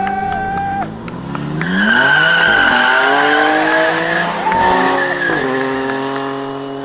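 BMW M3 (F80) twin-turbo straight-six revving through a burnout, its rear tyres squealing loudly from about a second and a half in until about five seconds in. The engine revs rise and fall under the squeal, then hold steadier near the end.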